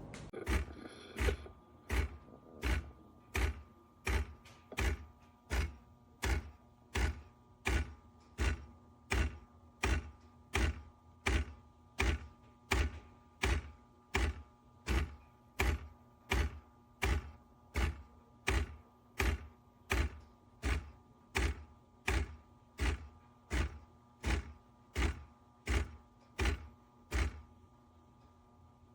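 CASABREWS 20-bar espresso machine running, its pump working in regular pulsing thumps about twice a second over a steady hum, until it stops near the end.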